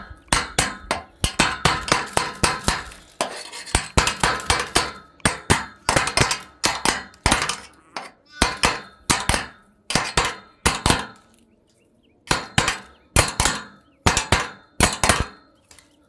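Hammer blows on a steel pipe-gate hinge, a series of sharp metal strikes with a short ring after each, about two to three a second, breaking off for about a second a little past halfway; the gate is being fitted onto its hinge.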